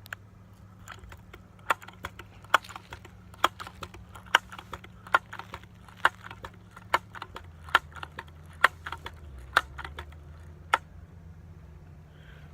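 Footsteps crunching on the ground at a walking pace, sharp crunches roughly one a second with fainter ones between, over a low background hum.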